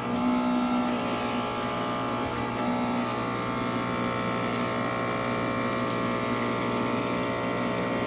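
Toauto induction furnace running, its cooling-water pump humming steadily, a set of even tones.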